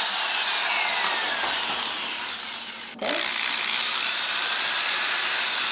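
Power drill running as it bores holes into a pumpkin, its motor whine falling steadily in pitch. It stops briefly about three seconds in, then starts again.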